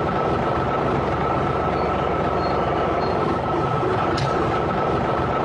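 A vehicle engine running steadily, with a constant high whine over it.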